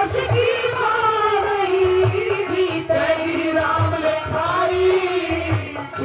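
Haryanvi ragni folk singing through a stage PA: a voice holding long, wavering sung notes over a drum keeping a steady beat.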